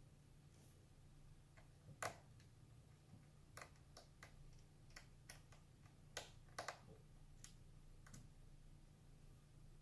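Scattered small clicks and taps from hands and tools working on a laptop's plastic case, about a dozen in all, with the sharpest about two seconds in. A faint steady low hum runs underneath.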